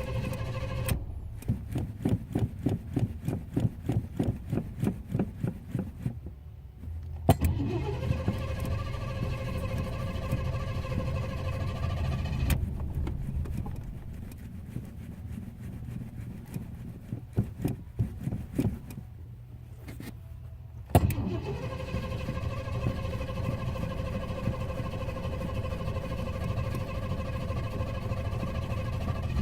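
Car engine hard to start: the starter cranks it for about five seconds, about four strokes a second, before it catches and runs. It dies down, cranks briefly again, then catches a second time near the end with a rising pitch and settles into a steady idle.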